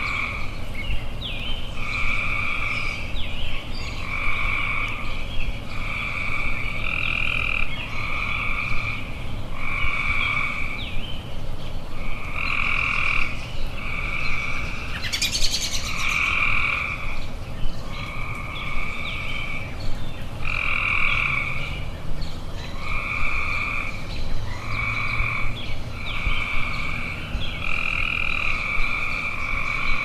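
Tree frogs calling in a chorus: a steady series of call notes about a second long, repeating roughly every second and a half, with faint bird chirps above. A short, rapid rattle cuts in about fifteen seconds in.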